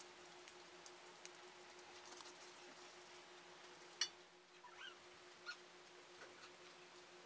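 Near silence: a faint steady hum with scattered soft clicks. There is one sharp click about four seconds in, followed by a brief faint chirp.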